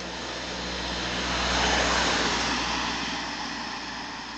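An estate car passing close by from behind: its tyre and engine noise swells to a peak about two seconds in, then fades as it drives away.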